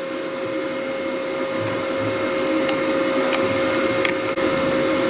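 The Leica HistoCore Pearl tissue processor's motor running: a steady whir with a clear constant whine, getting slightly louder. A few faint ticks come through it.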